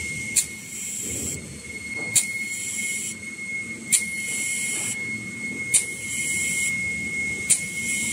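1850 mm kitchen-towel and toilet-paper rewinding machine running: a steady high whine over a low rumble, a high hiss that switches on and off every second or so, and a sharp click about every 1.8 seconds.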